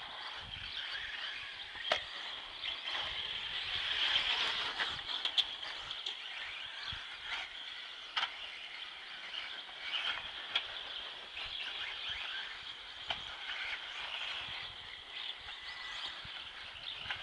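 Electric radio-controlled off-road buggies, including a Schumacher CAT SX, running laps on a dirt track: a steady high whine of motors and gears with tyre noise, broken by occasional sharp clicks and knocks as the cars land or hit the track edges.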